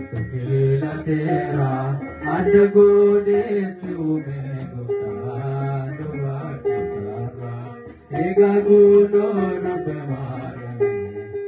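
Sung Ethiopian Orthodox hymn: long, held, gliding chanted notes over a plucked lyre, with a short break about eight seconds in.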